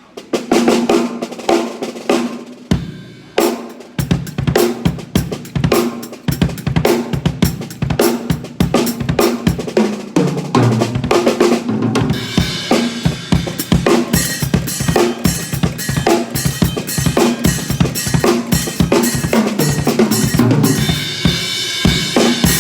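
Drum kit played in a steady groove during a sound check, with kick, snare and cymbal hits. After a brief break it comes back with a heavier low end, and the cymbals grow busier about halfway through.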